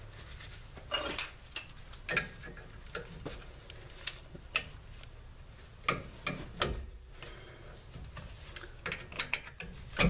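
Screwdriver prying a rear disc brake caliper loose: irregular light metal clicks and knocks, a few a second, with a quick cluster near the end.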